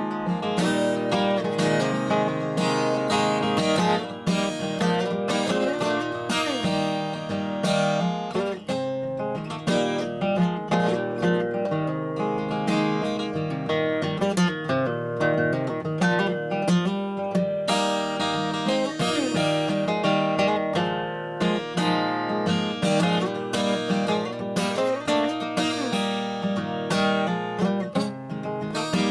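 Steel-string acoustic guitar with a capo, played alone in a steady rhythm of picked and strummed chords: an instrumental break between sung verses.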